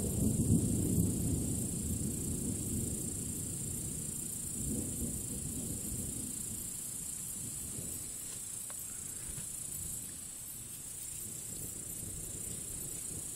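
The tail of a thunder roll rumbling low and dying away over the first few seconds, with a second, fainter rumble about five seconds in, over a steady high hiss.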